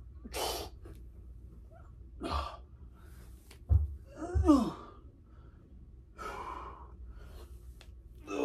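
A man breathing hard through dumbbell squats: sharp exhales every couple of seconds, a thump about three and a half seconds in, and a short falling grunt just after it.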